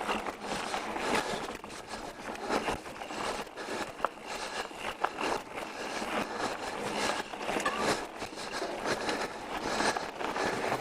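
Pivot Switchblade mountain bike rolling over a rocky dirt trail: a steady crunching of tyres on dirt and stones, with scattered clicks and rattles from the bike.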